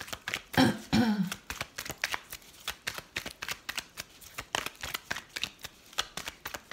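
A deck of divination cards being shuffled by hand: a quick run of soft card slaps and slides. A brief vocal sound comes about half a second in.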